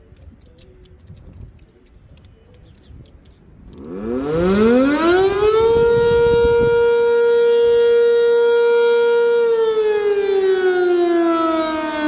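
A Sentry 7V8 outdoor warning siren winds up a little under four seconds in. It holds one steady, high tone, then slowly begins to wind down near the end: the opening rise and fall of an attack (fire) signal. Before it starts, wind rumbles on the microphone.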